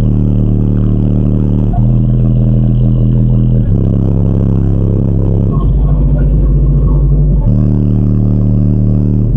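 Car audio subwoofers playing very loud bass during a sound-system demo: deep held bass notes that jump to a new pitch about every two seconds.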